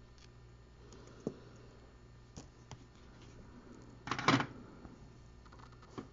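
Small clicks and knocks of parts and tools being handled on a workbench, with a louder brief clatter about four seconds in, over a steady low electrical hum.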